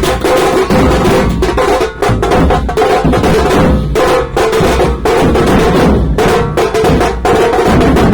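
Loud drumming music with rapid, densely packed drum hits and no let-up.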